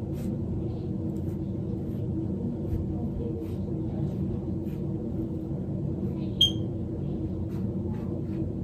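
Steady low room hum, with faint light clicks and one sharp click about six and a half seconds in.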